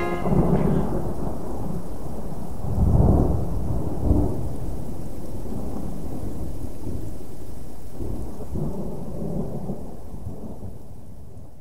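Thunderstorm: low rolling thunder over steady rain. The rumble swells twice, about three and four seconds in, then slowly fades away.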